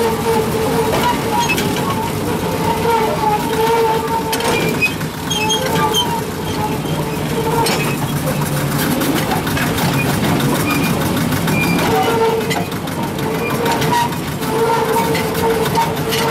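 Small narrow-gauge locomotive running along the track: a steady engine drone with a whine that comes and goes, and a few sharp clicks from the running gear.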